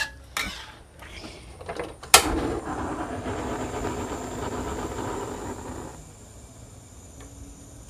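Gas stove burner being lit: a sharp click about two seconds in, then the steady hiss of the burner flame for about four seconds before it drops away.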